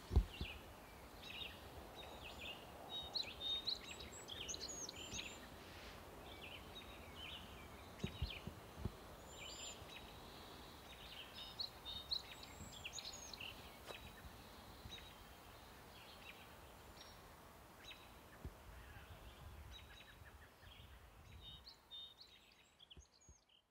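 Forest ambience of many small birds chirping and trilling in a high, busy chorus, with a few brief low thumps. The chorus fades out near the end.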